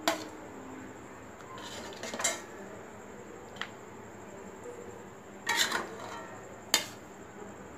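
Spatula knocking and scraping against a metal kadai and a ceramic plate as fish pieces are lifted out of the gravy: about five separate clinks and scrapes, the sharpest near the end.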